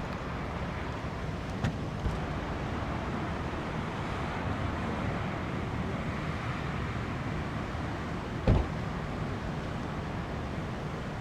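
Steady rumble of road traffic mixed with wind on the microphone, with a short thump about eight and a half seconds in.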